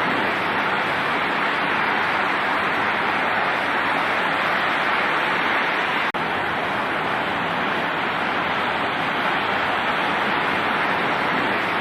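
Steady roar of a severe storm, an even rushing noise with no distinct impacts. It drops out briefly about six seconds in, then resumes.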